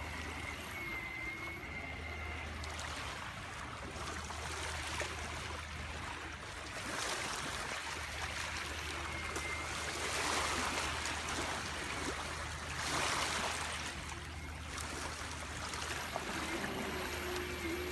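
Rushing noise of water and wind on choppy lake water, swelling every few seconds. A faint steady whine from the model boat's motor is heard near the start, with a steady hum returning near the end.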